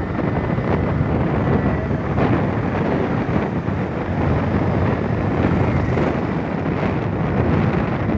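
Steady rush of wind on the microphone of a Hero Splendor motorcycle under way, with its small single-cylinder engine and tyre noise underneath.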